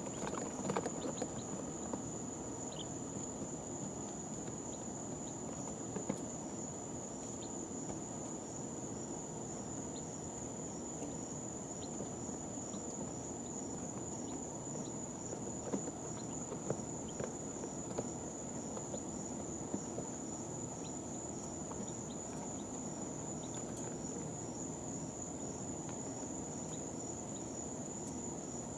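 A steady high-pitched whine with a faint fast pulsing, over a low steady hum. A few soft, brief peeps from day-old chicks and a handful of light scratches and taps on bedding are scattered through it.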